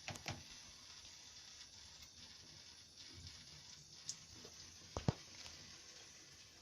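A cat moving about, making a few light taps and knocks over a faint steady hiss: two close together at the start, one about four seconds in, and the loudest about five seconds in.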